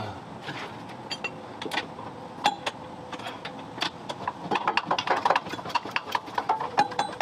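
Metal hand tools clicking and clinking on the suspension, breaking into a fast, even clicking about five times a second in the second half.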